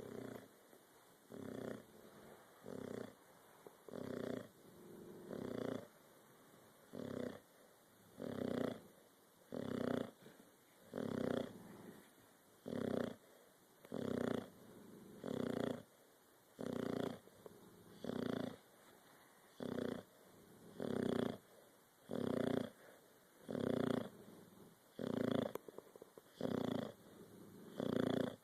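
A sleeping pet snoring steadily: a short snore about every second and a half, even in rhythm and loudness.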